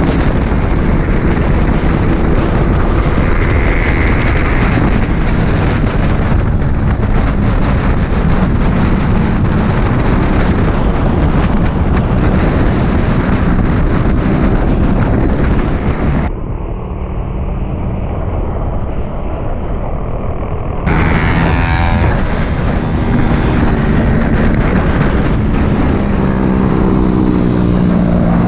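Sport motorcycle engine running under way at road speed, with heavy wind rush on the camera microphone. For about four seconds in the middle the sound turns duller, and near the end the engine pitch rises as the bike accelerates.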